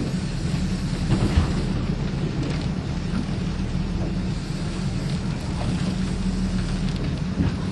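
Boat engine running with a steady low hum, with wind rushing over the microphone and a few faint knocks.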